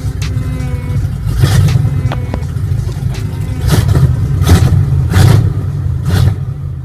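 Swapped-in V8 engine running loud with a heavy low rumble, revved in repeated sharp blips about once a second.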